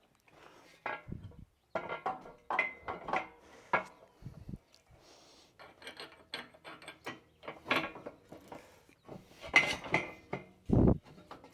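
Steel tools and pipe being handled: a run of irregular metal knocks, scrapes and rattles, some of them ringing, with a heavy low thud near the end.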